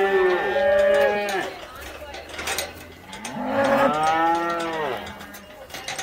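Corriente cattle mooing: a long moo that tails off about a second and a half in, then a second long moo about halfway through.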